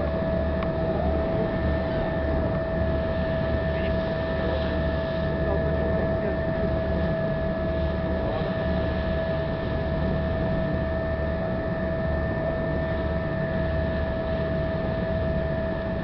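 Car ferry under way, its engines running steadily: an even low drone with a constant whine on top, over a steady rush of wind and water.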